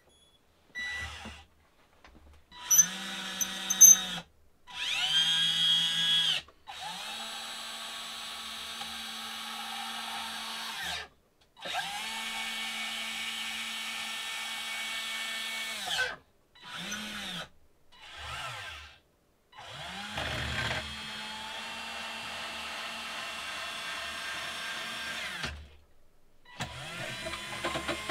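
12 V electric gear motors driving the lead-screw actuators of a 3D-printed RC excavator's boom, arm and bucket, which are not yet greased. The motors whine in about nine bursts of up to six seconds each, and the pitch rises as each one starts and falls as it stops.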